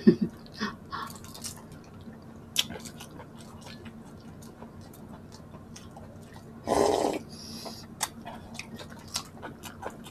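Raw-fingered peeling of cooked shrimp: scattered small clicks and crackles as the shell comes away. A louder, noisier burst lasting about half a second comes about two-thirds of the way through.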